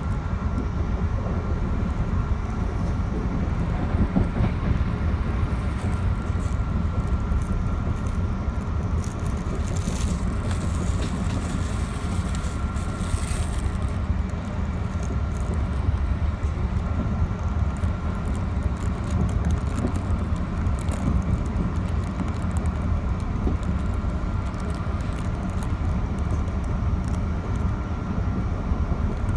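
Metro-North commuter train running along the track: a steady low rumble with a thin steady whine over it, and a brief hiss of higher sound about halfway through.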